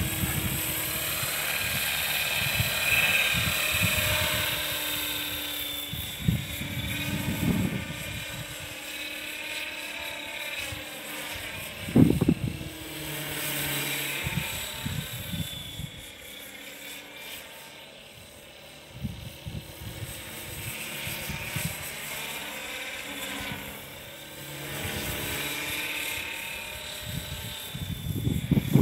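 Radio-controlled model helicopter (LaHeli Sniper) in flight, its rotor and drive giving a high whine whose pitch keeps rising and falling as it manoeuvres. Irregular low rumbles come and go, loudest about twelve seconds in and near the end.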